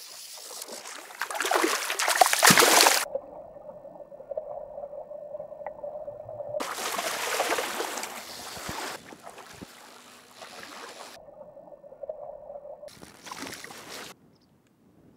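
A hooked Atlantic salmon splashing and thrashing at the surface of a river while being played from the bank. It comes in three noisy bursts, with a steady hum in the quieter stretches between them.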